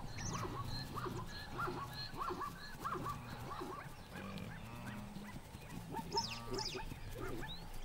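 Animal calls: a string of short, repeated calls, roughly two a second, over a steady low sound.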